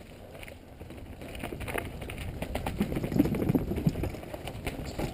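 Mountain bike descending a rocky dirt trail: tyres crunching over rocks and roots, with the bike clattering and knocking over the bumps. The clatter gets louder about three seconds in, over the rockiest stretch.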